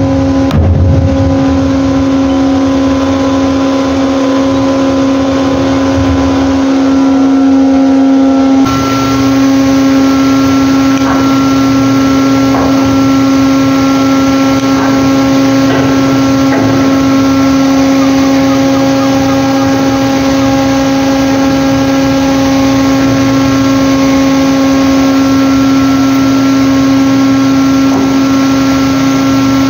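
Ship's machinery droning on deck: a loud, steady hum held on one pitch with overtones, unchanging throughout, with a few faint knocks over it.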